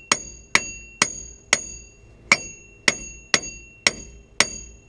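Steel hammer blows on a rust-seized front wheel hub assembly to knock it loose: nine sharp strikes at about two a second, each leaving a short metallic ring.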